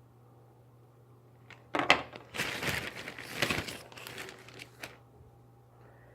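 Plastic parts packaging crinkling as it is handled, starting suddenly about two seconds in and lasting about three seconds.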